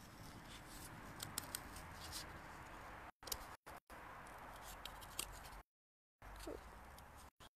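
Scissors cutting through a thin cardboard disc, with a few sharp snips of the blades over a faint steady background hiss. The audio cuts out briefly about three seconds in and again near six seconds.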